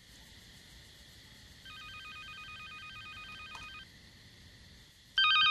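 Telephone ringing with an electronic warbling trill: a fainter ring of about two seconds starting near two seconds in, then a much louder ring starting near the end, over a low steady hiss.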